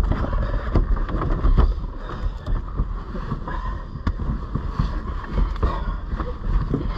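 Two grapplers scuffling on a car's back seat: bodies rubbing and bumping against the upholstery and interior, with frequent dull knocks and low rumble close to the microphone.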